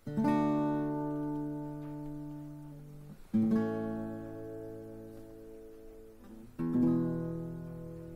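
Acoustic guitar music: three slow strummed chords, about three seconds apart, each left to ring out and fade before the next.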